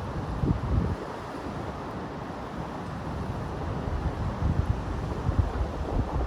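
Wind buffeting a phone's microphone in irregular low gusts, strongest about half a second in and again from about four seconds, over a steady outdoor noise haze.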